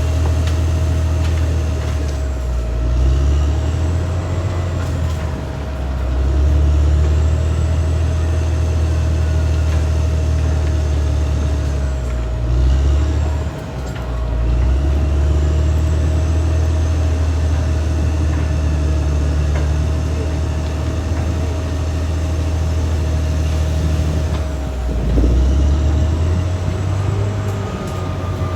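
Caterpillar D6R XL bulldozer's diesel engine running hard with a steady whine over it; the engine note sags and recovers three times as the load changes.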